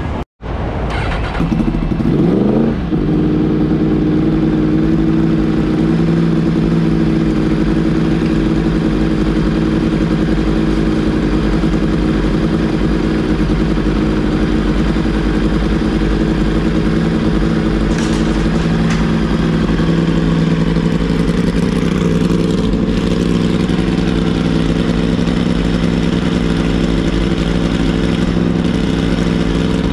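Yamaha YZF-R1 superbike's crossplane inline-four engine catching about two seconds in, its revs rising briefly, then idling steadily and loudly on the stand.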